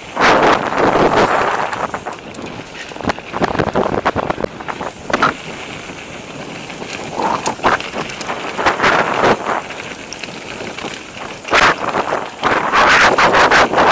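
Mountain bike riding fast down a rocky gravel singletrack: tyres crunching over stones and the bike clattering over bumps, with wind buffeting the microphone. It is loudest in bursts at the start and again near the end.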